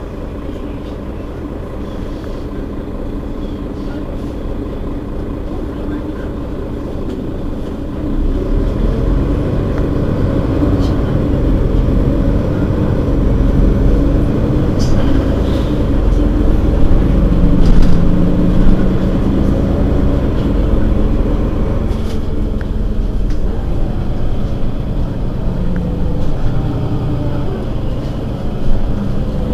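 Mercedes-Benz Citaro facelift city bus's engine idling while the bus stands still. About eight seconds in, the engine note grows louder and heavier, is strongest around the middle, then eases back a little while staying above the opening level.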